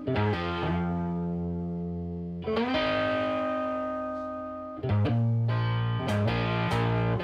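Background music: distorted electric guitar chords ringing out and changing every couple of seconds, then a quicker rhythm of short hits from about five seconds in.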